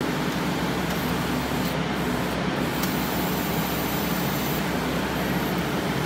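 Kubota skid steer's diesel engine running steadily while its hydraulics swing the boom mower arm up and out to the side. It starts abruptly and holds an even level.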